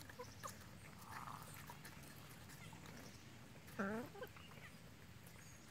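Chickens pecking at watermelon slices: quiet, with faint scattered pecking clicks, and one short hen call about four seconds in.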